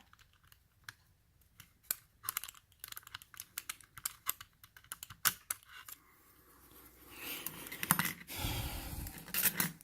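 Small metal tools clicking and tapping against the parts of a padlock being taken apart, a scattered run of light clicks, then a rougher stretch of scraping and handling noise near the end.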